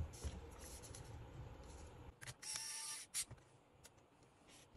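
Small electric screwdriver running in one short whir of under a second, about two seconds in, driving a screw into a laptop's chassis. A light click follows.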